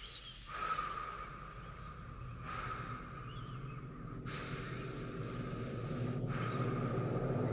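Close-miked human breathing: slow, airy breaths following one another about every two seconds, over a low hum that gradually grows louder.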